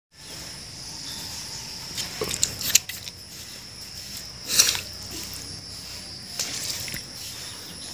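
Knife scraping the green skin off a fruit in a few short strokes, over steady high insect chirring.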